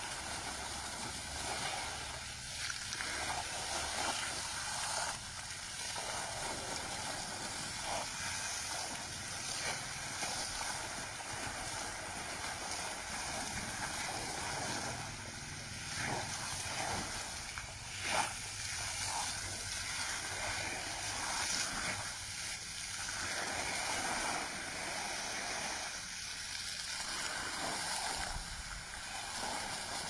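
Water jet from a ground fountain spraying up and splashing down onto wet ground, a steady hiss. One short sharp knock about two-thirds of the way through.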